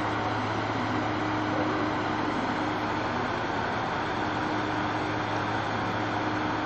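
KTR8000 diesel railcar standing at a station platform with its engine idling: a steady low hum under an even rumble of station noise.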